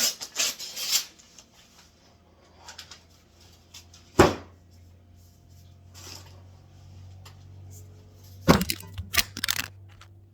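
A can of refrigerated cinnamon-roll dough being struck hard against a counter to pop it open: one sharp knock about four seconds in, then a quick cluster of hard knocks near the end, after some brief scraping at the start. A faint steady hum runs under it from about four seconds in.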